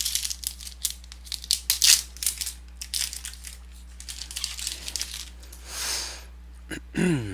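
Wrapper of a trading card pack crinkling and tearing open, with quick clicks and rustles as the cards are handled.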